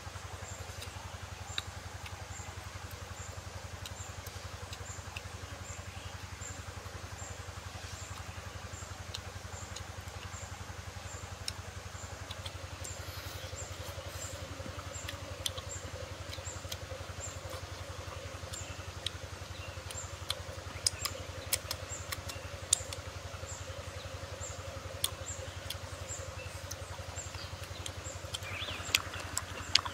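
Outdoor ambience: a steady low hum, with a short high chirp repeating about one and a half times a second that pauses partway through. Sharp clicks come more and more often in the second half.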